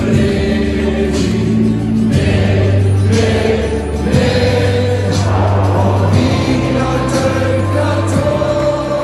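Music with choir-like singing over held chords that change about every two seconds.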